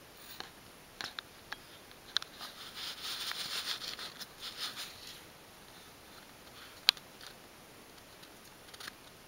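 Soft rustling of fur against sofa fabric close to the microphone as a ragdoll cat shifts its body, with a few light clicks in the first couple of seconds and a sharper one about seven seconds in.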